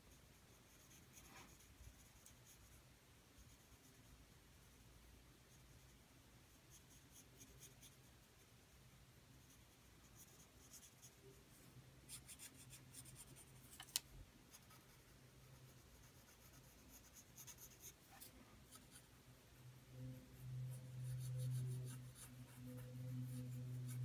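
Paper blending stump rubbed lightly over soft graphite pencil shading on paper, a faint, intermittent scratchy rubbing. A low steady hum comes in near the end.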